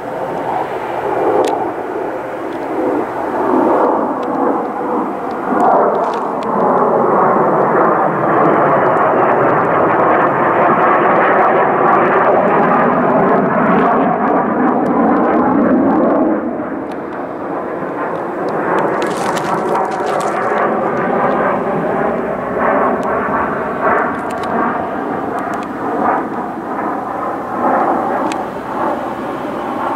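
F-35 fighter jets flying overhead, their Pratt & Whitney F135 engines making a loud jet roar that swells to its loudest mid-way and then eases off a little after about sixteen seconds, with a wavering, phasing tone as they pass.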